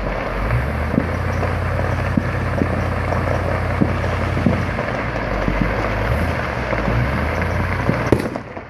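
Steady outdoor rumble, like wind on the microphone and distant traffic, with a few faint sharp pops scattered through it. It dies down near the end.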